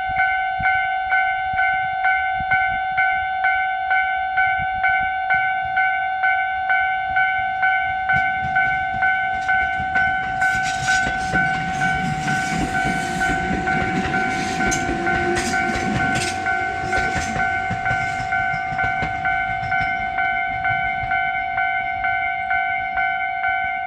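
Japanese railway crossing alarm ringing steadily, an electronic ding repeating a little under twice a second. From about eight seconds in, a departing Tobu Koizumi Line train rumbles through the crossing, its wheels clicking over the rail joints, loudest in the middle and fading over the last few seconds.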